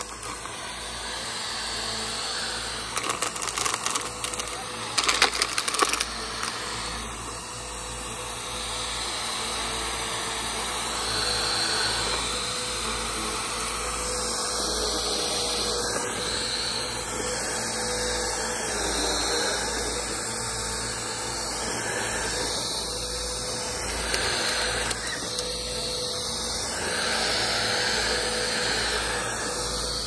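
Upright bagless vacuum cleaner running steadily as its floor head is pushed over grass and bare dirt, its motor whine holding an even pitch. In the first few seconds there are bursts of sharp clicking and rattling, grit and small stones being sucked up.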